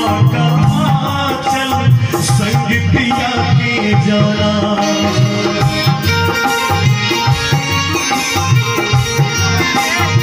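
Live Indian devotional music: a dholak keeps a steady rhythm while a harmonium and a bulbul tarang (Indian banjo) play the melody.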